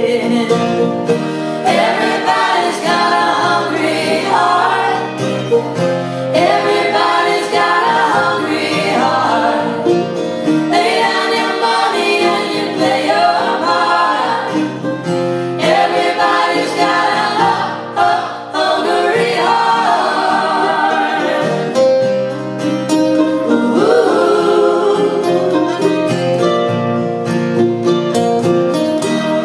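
Live group singing: many men's and women's voices singing together in a slow, dirge-like arrangement over strummed acoustic guitars.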